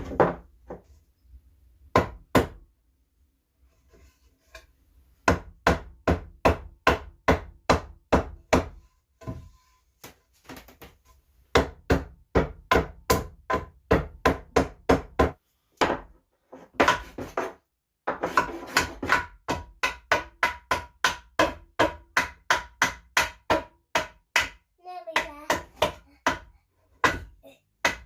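A hammer driving nails into the wooden pieces of a planter box, in runs of quick, even strikes of about two to three a second with short pauses between the runs.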